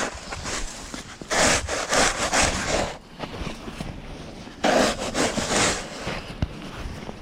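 Snow shovel scraping through packed, icy snow in two long strokes, about a second and a half in and again near five seconds.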